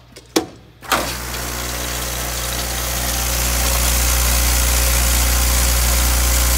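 A short click, then the batching machine's bowl feeder starts just under a second in and runs steadily. A low electric hum sits under the dense rattle of small metal rivets churning against the stainless bowl, building up over the first couple of seconds.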